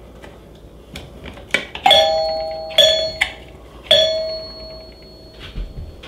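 Mechanical doorbell chime sounding three times: each strike of the plunger on the metal tone bars gives a ringing tone that fades slowly. The second tone is cut short almost at once, and the last rings on for about two seconds. A few small clicks come before the first strike.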